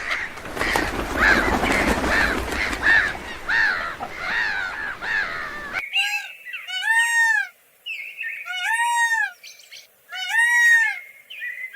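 Birds calling: first a dense chorus of short, repeated arched calls over background noise, then, after a sudden cut about six seconds in, four clear arched calls with quiet gaps between them.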